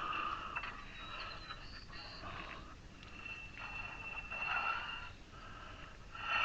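Honda Fit front brake rotor scraping against a bent backing plate (dust shield) as the hub is turned by hand, in repeated rasping rubs about a second long with a thin squeal in the middle.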